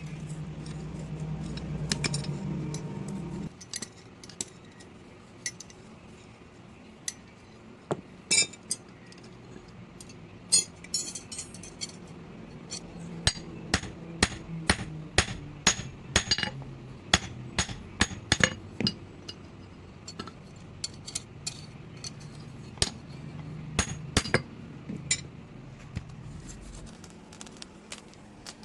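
Hammer striking metal: many sharp, ringing blows, irregular at first, then coming quickly at about two or three a second for several seconds before thinning out. A steady low hum runs for the first few seconds and then stops.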